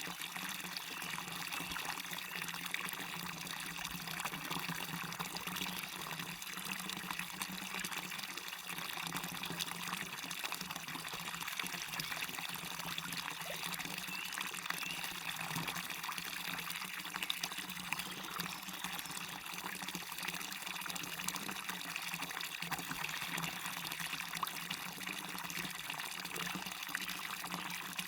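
Waterfall running steadily: an unbroken hiss of falling and splashing water, with many small splashes flecked through it.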